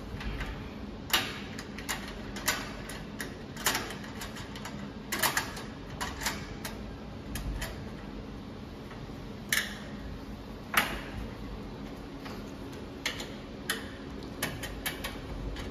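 Hex key clicking and ticking against socket-head screws and the metal frame as the screws are tightened: irregular sharp ticks, a dozen or more, the loudest about a second in and near eleven seconds. A steady low hum runs underneath.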